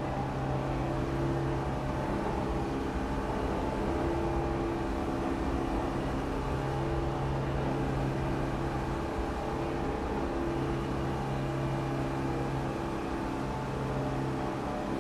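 New York City subway train running: a steady low rumble with a deep hum that fades in and out every few seconds.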